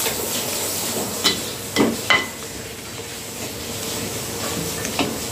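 A slotted metal ladle stirring chicken through a thick sauce in a metal pot, knocking against the pot four times, over a steady sizzling hiss from the cooking.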